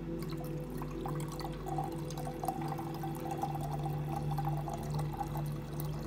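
Water pouring in a thin stream from the spout of a Yixing clay teapot into a glass teapot, splashing and trickling.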